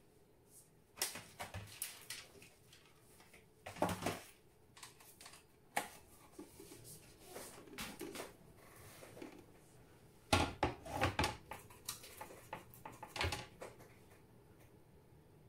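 Irregular light clicks and knocks from painting tools being handled, in small clusters about a second in, around four seconds, and at ten to eleven seconds in.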